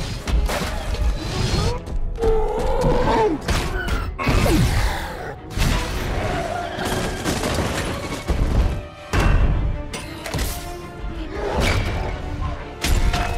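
Film fight-scene sound effects over a music score: a run of heavy thuds, booms and crashes, with shattering debris.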